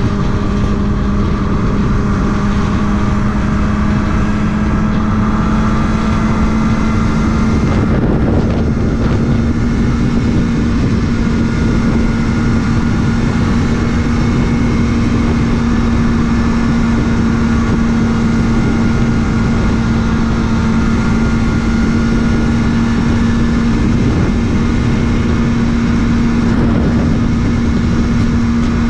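Kawasaki ZX-6R inline-four motorcycle engine running at a steady, nearly constant pitch while cruising, with wind noise on the microphone.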